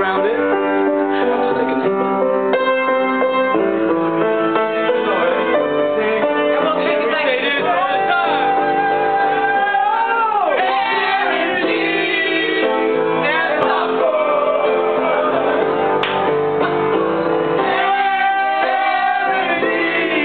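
Music: a song, with a voice singing over instrumental accompaniment.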